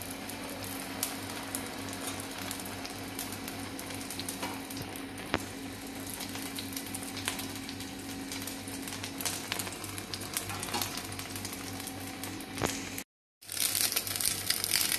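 Custard-soaked bread slice frying in butter and oil on a dosa tava: a steady sizzle with scattered small pops. It cuts out for a moment near the end and comes back louder.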